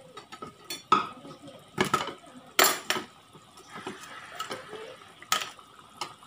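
Steel spoon scraping and clinking against a metal pan as it stirs a thin, watery peanut-chili sauce, in irregular strokes.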